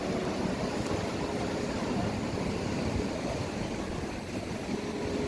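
Steady rush of sea surf and wind, with a faint steady motor hum that drops out a little under two seconds in and returns near the end.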